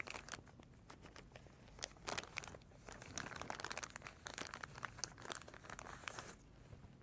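Blue VCI anti-corrosion plastic bag crinkling as it is handled and opened by hand, a run of irregular crackles that thins out near the end.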